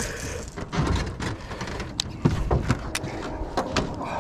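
Irregular clicks, knocks and low thumps on an aluminum jon boat's hull and floor as a caught fish and fishing gear are handled aboard.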